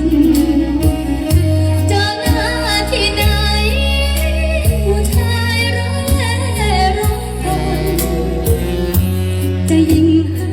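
Music with a heavy, steady bass line and a singing or melodic lead voice whose pitch glides up and down, played loud over a sound system.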